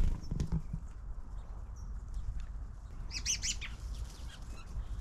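Small wild songbirds calling, with a quick burst of high chirps about three seconds in. A few soft low thumps at the very start.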